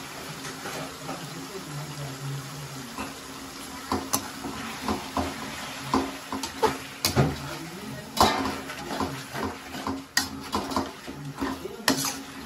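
Chicken and cucumber pieces cooking with a steady hiss in a large metal kadai; from about four seconds in, a metal ladle stirs them, repeatedly scraping and knocking against the pan.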